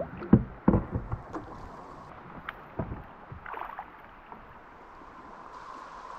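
A landing net plunged into the river beside a drift boat: a few heavy splashes and knocks in the first three seconds as a trout is scooped up and thrashes in the net, then the steady wash of moving water.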